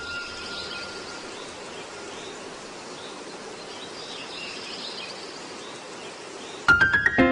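Steady outdoor ambient noise with faint high chirps, such as night insects or birds. Near the end a few clicks and a short rising run of notes lead into music.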